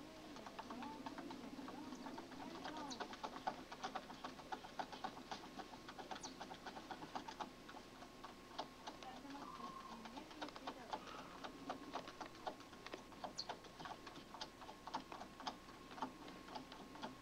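Small dog snuffling and pawing at the open end of a metal drain pipe, hunting a chipmunk inside: quiet, irregular ticks and scrapes, several a second.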